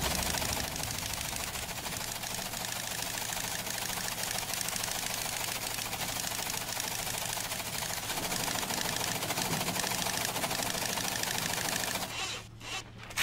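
Teleprinter printing an incoming telegram: a rapid, even clatter of type strikes over a steady motor hum, stopping about a second before the end.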